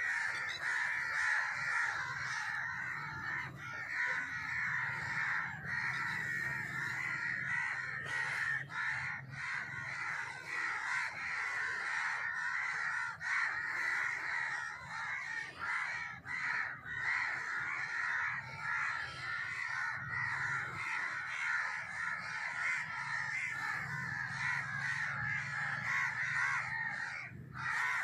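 A dense chorus of many birds calling at once, continuous and unbroken.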